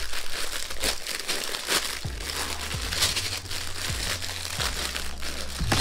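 Plastic bag of Lego pieces crinkling and rustling as it is handled, with light clicks of plastic parts.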